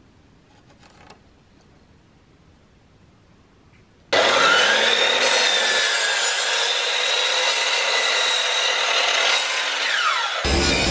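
DeWalt sliding mitre saw starting up about four seconds in and cutting through softwood battens, with a steady high motor whine over the noise of the blade in the wood.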